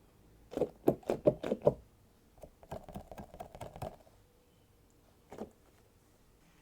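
A quick run of about six sharp taps, then a softer, crackly patter of small taps, and a single tap near the end.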